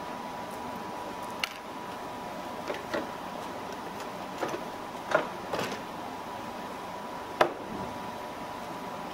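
Scattered light clicks and knocks of hands handling parts in a car's engine bay, about seven in all, the loudest near the middle and another shortly before the end. Under them runs a steady hiss with a faint high whine.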